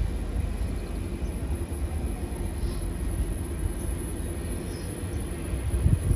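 Ouigo double-deck high-speed train (Alstom Euroduplex) rolling slowly past: a steady low rumble of wheels and running gear with a faint steady hum over it, and a heavier thump near the end.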